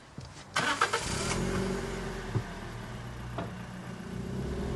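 Car engine started with the key, heard from inside the cabin: a short burst of starter cranking about half a second in, then the engine catches, revs briefly and settles into a steady idle.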